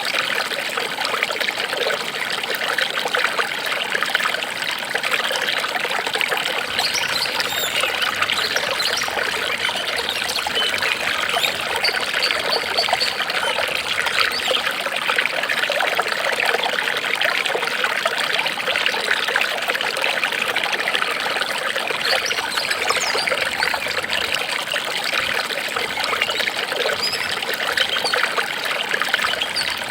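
Water trickling steadily and without a break, like a small stream.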